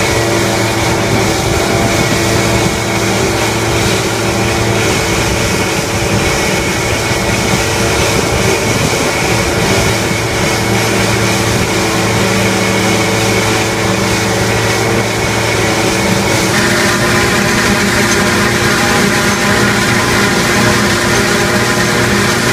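Deutz Agrotron 7250 tractor and trailed Dion forage harvester running together while chopping corn for silage: a loud, steady machine drone with several held tones. The mix of tones changes suddenly about three-quarters of the way through.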